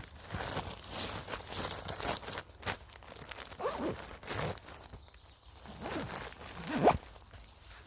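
Dry moss, leaves and twigs crunching and rustling in irregular bursts as moss is torn up and handled, with two brief wavering tones, one near the middle and one near the end.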